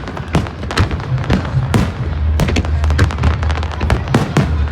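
Fireworks display: rapid, irregular cracks and bangs of bursting shells, several a second, over a continuous low rumble.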